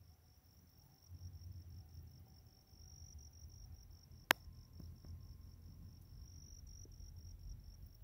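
A steady, high-pitched insect trill, faintly pulsing and unbroken, over a low rumble. A single sharp click a little past the middle is the loudest sound.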